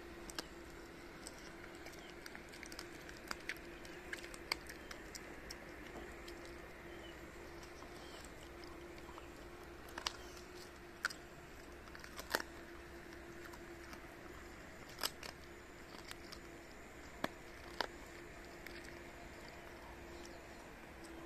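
Shiba Inu gnawing a boiled chicken carcass, with irregular sharp crunches and cracks of the bones, mostly in the first few seconds and again from about ten seconds in. A faint steady hum runs underneath.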